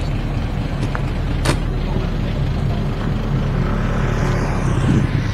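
Steady rumble of wind and road noise on the microphone while riding a bicycle, with a short click about a second and a half in.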